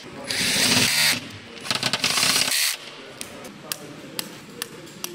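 Cordless drill-driver with a socket extension running in two short bursts as it backs bolts out of an aluminium engine block, then a run of light separate clicks.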